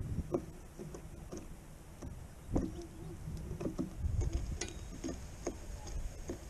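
European goldfinch pecking and husking sunflower seeds in a feeder tray right by the microphone: irregular sharp clicks and taps, over a low rumble of wind on the microphone.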